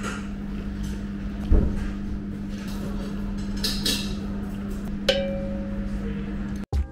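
Rice noodles slurped off chopsticks around the middle, over a steady hum in the room. There is a sharp knock about a second and a half in and a light clink about five seconds in, and the sound cuts off just before the end.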